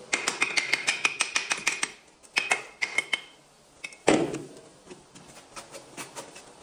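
Stonemason's hammer chipping the edge of a hand-held piece of natural stone to dress it: a quick run of sharp, ringing strikes, a few more after a short pause, one heavier knock about four seconds in, then lighter taps near the end.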